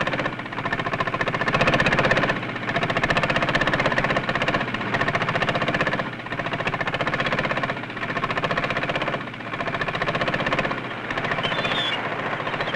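A boat's inboard engine chugging steadily with a rapid, even knocking beat.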